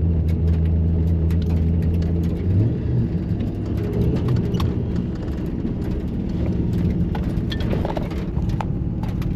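Turbocharged RB30 straight-six in a VN Commodore running at low revs, heard from inside the cabin. The steady low note changes and turns rougher about two and a half seconds in, with scattered sharp clicks throughout.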